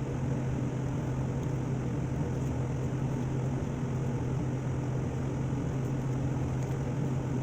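Steady low machine hum over a constant hiss, unchanging throughout, with no distinct chewing or other sudden sounds standing out.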